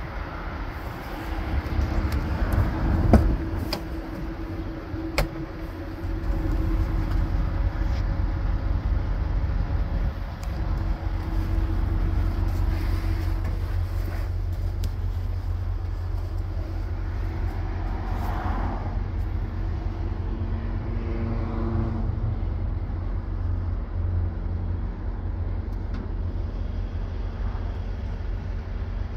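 Detroit DD13 inline-six diesel idling with a steady low rumble, heard from around and inside the truck's cab. A sharp knock about three seconds in, and a lighter click a couple of seconds later.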